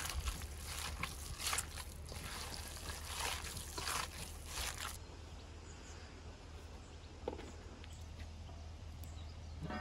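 Hands kneading and squishing minced-meat filling in a stainless steel bowl: irregular wet squelching strokes, about one or two a second. About five seconds in they stop, leaving a quieter stretch with a few faint ticks.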